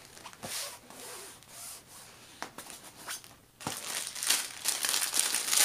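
Hands rubbing and smoothing a diamond painting canvas flat against the tabletop: soft, scattered swishing strokes. About two-thirds of the way in, a louder, denser rustling and crinkling of packaging begins.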